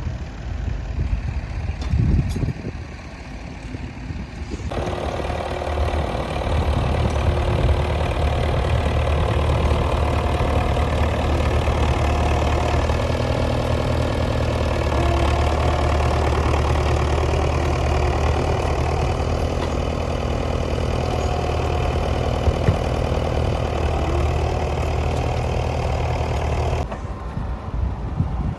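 Tractor engine running steadily at a low, even speed. The sound jumps suddenly louder about five seconds in, and changes abruptly again near the end.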